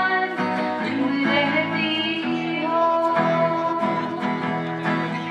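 Two women singing a duet over a strummed acoustic guitar, the voices carrying a melody that bends between notes and then holds a long note.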